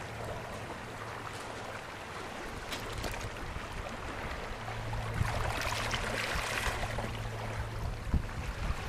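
Small Baltic Sea waves washing and lapping over a stony shore, swelling a little louder and hissier about halfway through, with a low steady rumble underneath.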